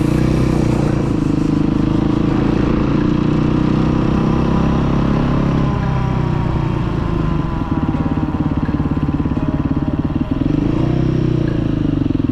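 Dirt bike engine running under way, heard from on the bike: the revs rise and fall near the start, drop back for a few seconds midway, then climb and fall again near the end.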